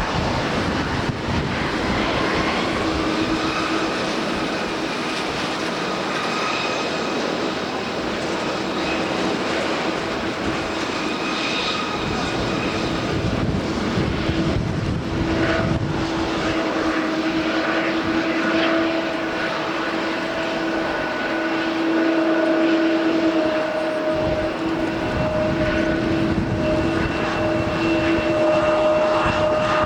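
ANA Boeing 777-300 jet airliner's engines running with a steady low hum and higher whines, growing stronger about halfway through, over a haze of wind and rain noise.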